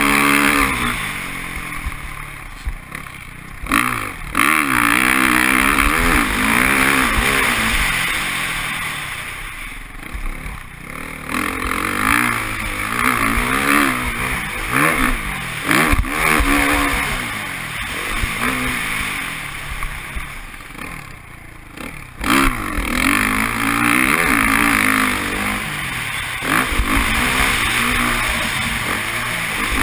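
Dirt bike engine revving up and down as it is ridden over a motocross track, heard from a camera mounted on the bike, with wind noise over it. The throttle is rolled off and opened again several times, with a sharp surge about two-thirds of the way through.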